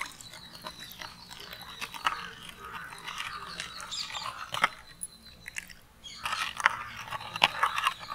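Metal spoon stirring a sweetened drink mixture in a glass bowl, scraping and clinking irregularly against the glass, with the liquid swishing.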